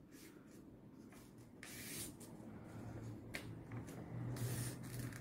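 Origami paper being folded and creased by hand: faint rustling and rubbing with a few crisp crackles, starting about a second and a half in.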